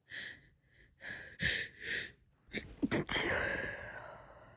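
A woman's sneezing fit, held back to keep quiet: a few short, catching breaths in the first two seconds, then a sharp sneeze about two and a half seconds in, trailing off into a long breathy exhale.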